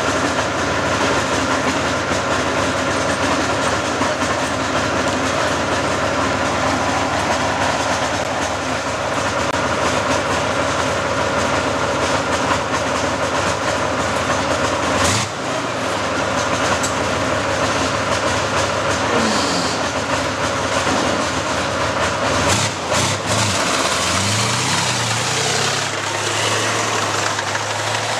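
Heavy machinery running steadily, with a few knocks. About three-quarters of the way through, the V-12 diesel of a T-55-based tracked fire-brigade vehicle starts: its pitch rises as it catches, then settles into a steady idle.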